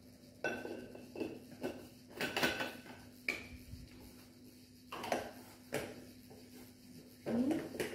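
A metal teaspoon clinking and scraping inside a small container of dry yeast as it is scooped out, in a series of short knocks, a few of them ringing briefly.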